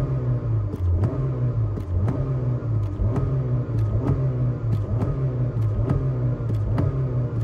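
Honda car engine being revved by pumping the accelerator pedal: a steady rumble whose pitch swings up and down in quick repeated blips, about twice a second. Occasional sharp clicks are heard along with it.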